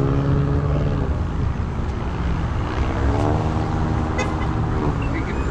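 Street traffic: motor vehicle engines running, with a steady hum whose pitch shifts slightly partway through.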